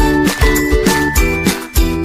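Background music with a steady beat of about two hits a second and a bright, tinkling melody.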